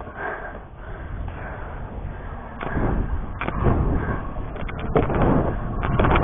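Stunt scooter wheels rolling over concrete, getting louder about halfway through, with several sharp clacks and knocks from the scooter.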